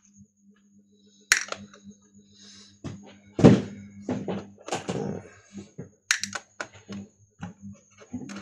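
Plastic laptop case being handled and worked on a bench while it is taken apart: a sharp click a little over a second in, a loud thunk about halfway, then a run of lighter knocks and clicks.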